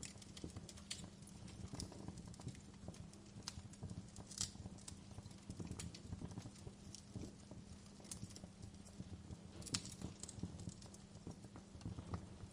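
Fire crackling: irregular sharp pops and snaps over a low steady rumble, with two louder pops about four and a half and nearly ten seconds in.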